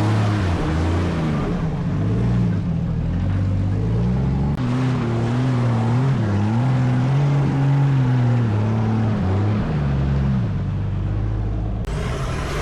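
Off-road vehicle's engine running under changing throttle, its pitch rising and falling as it is revved and eased off. The sound changes abruptly about four and a half seconds in and again near the end.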